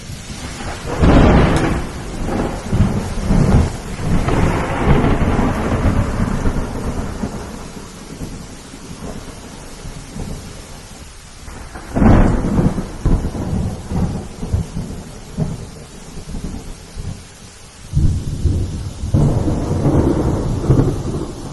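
Rain falling steadily through a thunderstorm, with rolling thunder: loud rumbles break out about a second in, again around twelve seconds in, and once more near the end, each dying away over several seconds.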